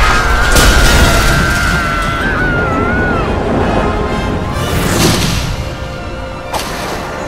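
Dramatic film-score music mixed with boom and crash effects. A high, wavering held tone ends about three seconds in, and a whooshing swell comes about five seconds in, as the flying bed is shown.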